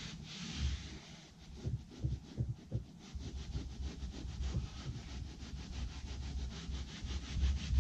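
Hands rubbing carpet in quick back-and-forth strokes, several a second, with a few low thumps. The carpet is being worked down into freshly tacked spray adhesive so it bonds.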